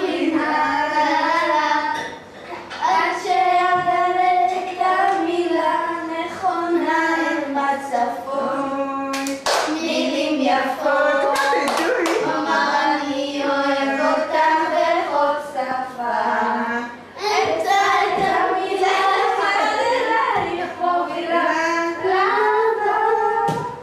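A young girl singing a song in a sustained, melodic voice, with a few sharp claps around the middle and near the end.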